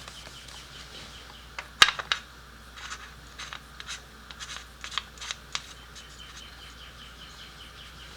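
Oil filler cap being screwed back into the Kawasaki ZX-10R's engine: a sharp click about two seconds in, then a run of small clicks and scrapes.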